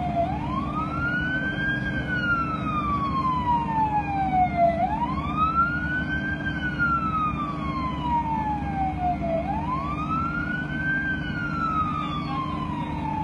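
Emergency vehicle siren wailing, its pitch rising quickly and then falling slowly, repeating about every five seconds, over a steady low rumble.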